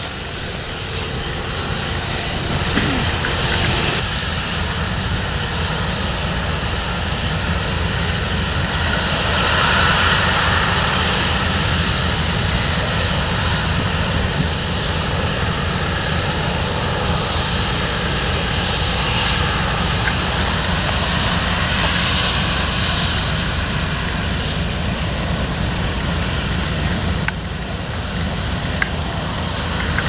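Claas Lexion 770 combine harvester running as it cuts wheat: a steady, loud drone of its engine and threshing machinery, swelling slightly about a third of the way in.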